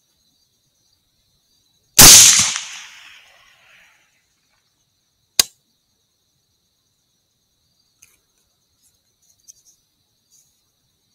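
A single rifle shot about two seconds in, its report fading away over a second and a half. A sharp click follows about three seconds later. Crickets chirp faintly and steadily throughout.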